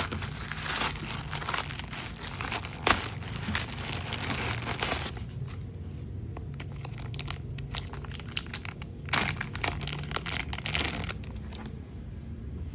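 Plastic packaging crinkling and tearing as a toy is unwrapped by hand: a dense stretch of rustling for about five seconds, then scattered crackles and clicks, another burst of crinkling about nine seconds in, and quieter near the end.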